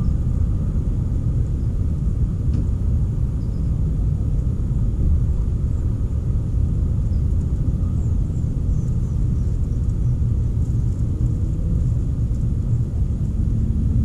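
Steady low outdoor rumble, with a few faint high bird chirps now and then.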